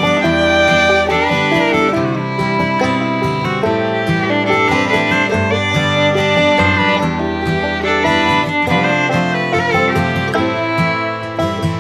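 Background music: an upbeat fiddle-and-guitar tune in a bluegrass style.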